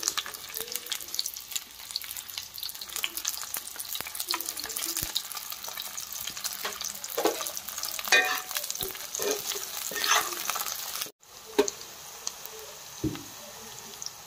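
Eggplant and onion slices sizzling and crackling in hot oil in a black wok, with a spatula stirring and scraping them against the pan, the scrapes strongest midway. The sound breaks off for a moment about eleven seconds in, then the frying goes on.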